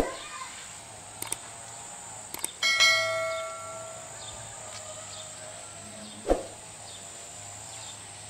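A single struck bell-like metallic ring about a third of the way in, dying away over a second or so. Sharp knocks at the start and near the end, and a steady high-pitched whine underneath.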